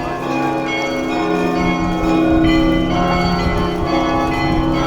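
Russian Orthodox church bells ringing: many bells of different pitches struck in turn, their tones ringing on and overlapping.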